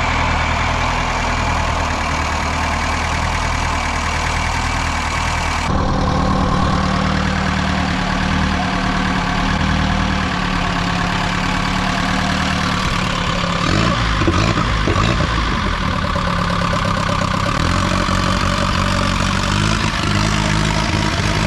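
Nissan KA24E four-cylinder engine idling steadily just after first start following long storage, with a clicking from the spring-loaded plungers on the rocker arms. The plungers tend to clog with dirt and are slow to fill with oil after the engine has sat, which is very common on these engines.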